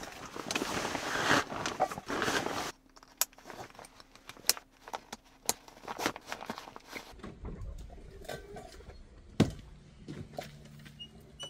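Rustling of a backpack's fabric liner as it is stuffed and pressed down, loud for the first couple of seconds. After a sudden stop, scattered clicks and taps follow as the pack's straps are pulled and fastened.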